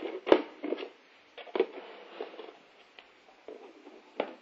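Plastic food containers, lids and a plastic ladle knocking and clicking against each other as they are handled. A few separate light knocks, the loudest about a third of a second in, others around a second and a half and near the end.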